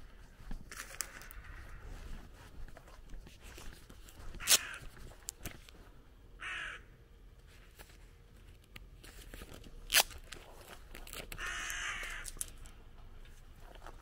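A bird gives harsh, rasping calls three times: about a second in, a short one midway, and a longer run near the end. Two sharp clicks, the loudest sounds, come about a third and two thirds of the way through, over faint footsteps on a gravel lane.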